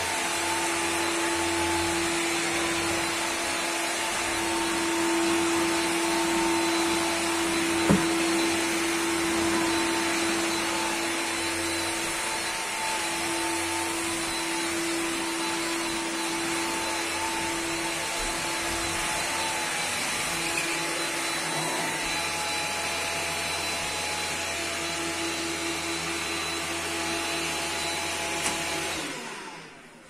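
Bosch Athlet 25.2V cordless stick vacuum running steadily while pushed over carpet, a motor hum under an airy hiss, with a single sharp knock about eight seconds in. Near the end it is switched off and winds down.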